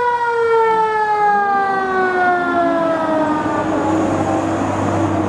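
Fire engine siren sounding one long slow fall in pitch as it winds down. The truck's engine rumble and road noise come up as it drives past near the end.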